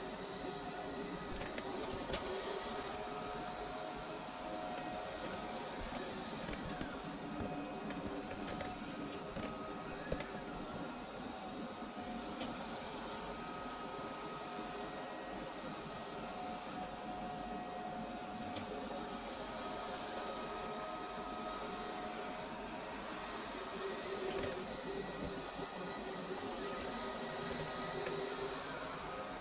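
Vorwerk VR100 (Neato XV11) robot vacuum running a cleaning pass: a steady motor hum with a constant high whine and a few held tones, and occasional short clicks.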